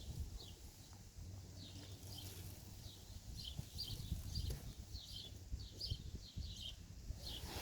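Small birds chirping, with short high chirps coming several times a second over a low rumble.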